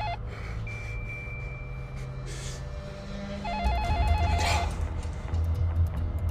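Wall-mounted telephone ringing with a fast warbling electronic ring, in two bursts: one ends just after the start and the next comes about three and a half seconds in. A low steady hum sits underneath.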